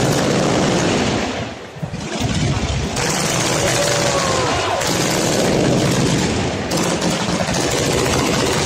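Fireworks display going off in a rapid, continuous barrage of bangs and crackling from bursting shells. The barrage eases briefly a little under two seconds in, then resumes.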